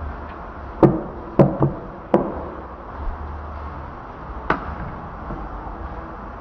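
Cleaver chopping on a wooden chopping block: four sharp strikes within about a second and a half, then a single one a couple of seconds later.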